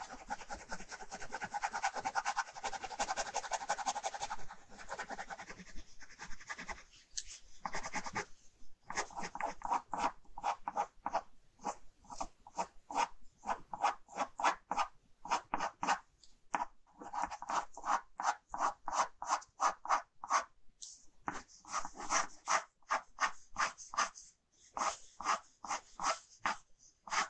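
Ballpoint pen scratching across paper in hatching strokes. A dense, rapid scribble for the first few seconds, then distinct back-and-forth strokes several times a second, with brief pauses between runs.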